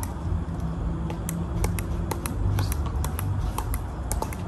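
Rain: irregular sharp ticks of drops landing close by, several a second, over a steady low rumble.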